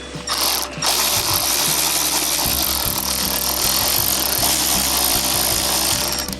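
Power tool running on a socket for about six seconds and then stopping, loosening a power steering pump's lower mounting bolt.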